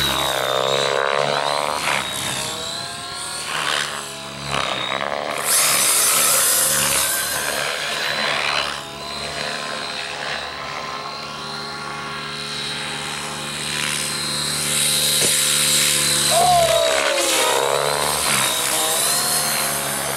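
Align T-Rex 700 RC helicopter flying close by, its rotors giving a steady drone with a high whine on top. Whines that sweep up and down in pitch come and go over it, and a loud hissing rush comes in around five seconds in.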